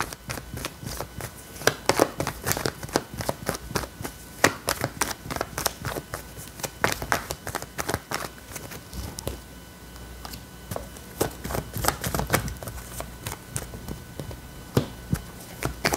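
A deck of tarot cards shuffled by hand: an irregular run of soft clicks and flicks as the cards slide and strike one another, with cards drawn and laid on the table.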